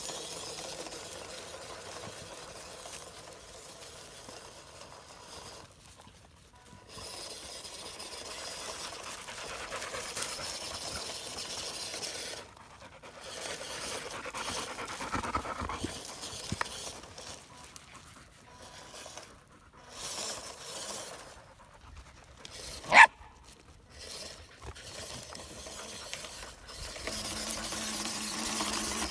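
A small terrier panting hard, in stretches broken by short pauses, with one short, loud bark a little over twenty seconds in.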